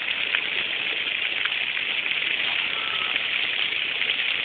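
Waterfall water rushing and splashing in a steady hiss, with a few small splashes.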